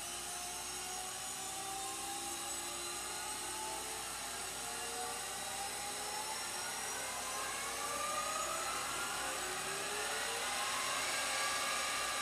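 The sound module of an RC Terex Finlay rock crusher model playing its simulated engine start-up through a small speaker: a whirring machine hum that slowly winds up, its pitch rising steadily and getting a little louder.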